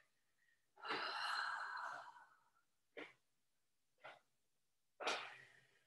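A person's long, breathy, sigh-like exhale lasting about a second, followed by three short, soft sounds about a second apart.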